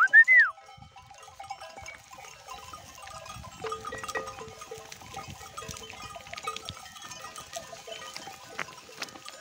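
A short loud whistle that rises then falls, right at the start. Then a distant flock of sheep: many small bells clinking over and over at fixed pitches, mixed with bleats.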